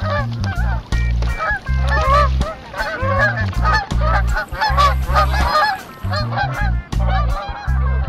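A flock of geese honking, many calls overlapping, over music with a pulsing low bass line.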